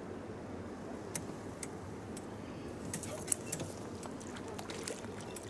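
Scattered light clicks and ticks from fishing tackle over a steady low outdoor background. The clicks come as a float rod is struck and the line pulled up out of the water with a hooked fish; they are densest a few seconds in.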